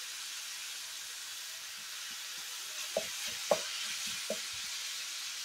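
Ground beef and pork sausage sizzling steadily as they brown in a skillet, with a few light knocks starting about three seconds in.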